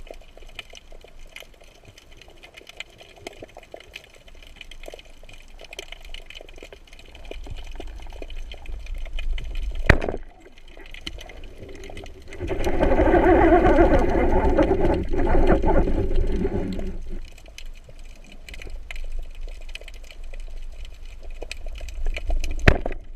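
Water sounds picked up by a camera in the sea: a low rumbling wash and scattered clicks, with a louder gurgling, bubbling stretch lasting about four seconds just past the middle. There is a sharp click about ten seconds in and another near the end.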